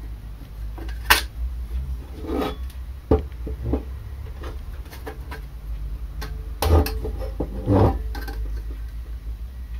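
A small aluminium stand frame with metal rods and rubber-tyred wheels, and a ruler, being moved and slid about on a wooden workbench: scattered knocks and scraping, the sharpest knock about a second in and a cluster of louder knocks and rubbing around seven to eight seconds in.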